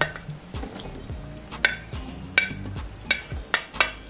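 Plastic slotted spatula stirring sliced bell peppers and okra into curry sauce in a skillet, with several sharp knocks against the pan, mostly in the second half.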